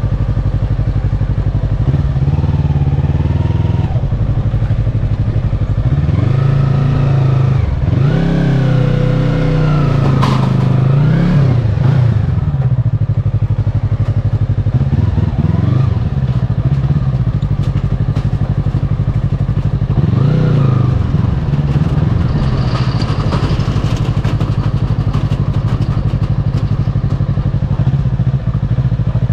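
Yamaha R25's 250cc parallel-twin engine running at low riding speed, its revs rising and falling several times with the throttle.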